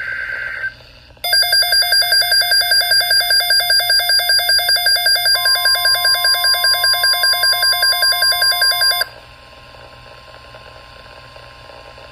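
Midland NOAA weather radio alert for a tornado watch. The tail of a steady data tone comes first, then a loud, rapid beeping alarm at about five beeps a second for about eight seconds. Midway through, a steady warning tone joins it, and both cut off together, leaving faint radio hiss.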